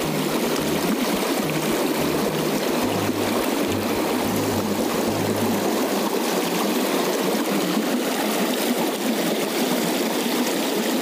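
Fast mountain stream rushing and splashing over rocks close to the microphone, a steady water noise.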